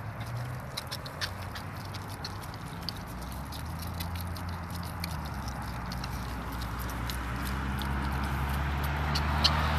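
Several pigs munching bananas and carrots from a wooden trough, a steady run of small wet smacks and clicks. A low steady hum builds underneath from about a third of the way in and grows louder toward the end.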